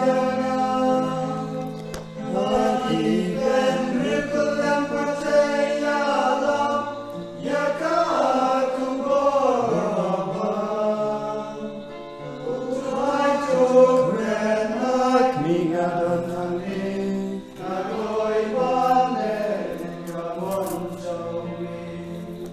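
Khasi-language opening hymn of the Mass being sung, with voices carrying the melody over held low accompaniment notes. The hymn tapers off near the end.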